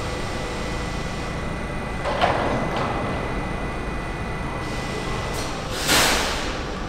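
R68-series New York subway train rolling slowly into an underground station, with a steady low rumble and a faint steady whine that stops about two-thirds of the way through. A short sharp clank comes a couple of seconds in, and a burst of air hiss swells and fades near the end.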